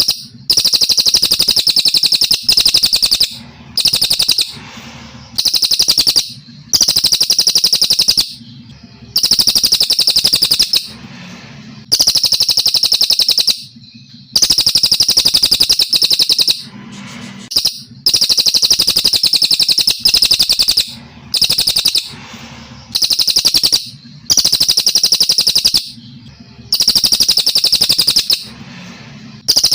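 Brown cililin, a Kalimantan songbird, singing long clean bouts: rapid high trills about one to two seconds each, repeated about a dozen times with short pauses between.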